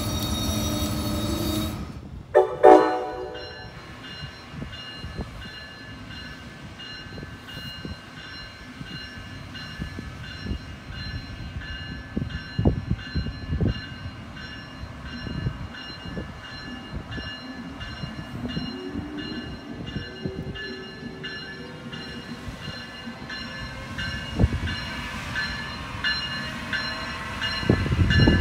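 Amtrak trains at a station. A departing Amfleet train's wheels squeal on the curve and stop about two seconds in, followed by a brief loud tone. Then an Amtrak ACS-64 electric locomotive approaches with a rising electric whine and passes loudly near the end.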